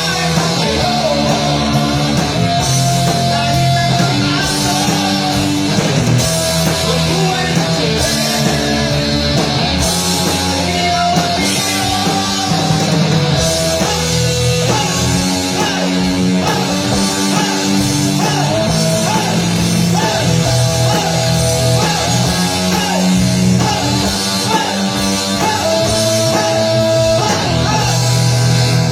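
Rock band playing live: electric guitar, bass and drum kit, with a melody of held notes each lasting about a second.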